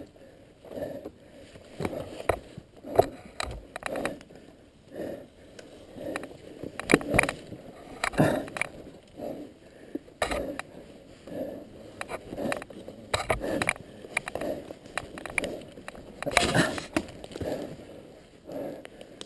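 Irregular scrapes and knocks, a burst every second or so with no engine running.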